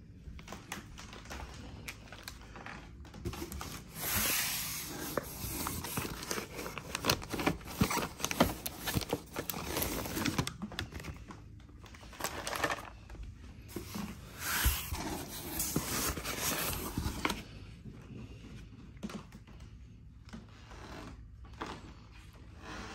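Plastic packaging bags crinkling and rustling as TV accessories are handled and unwrapped, with scattered light clicks and taps. The rustling is busiest in the middle and dies down over the last few seconds.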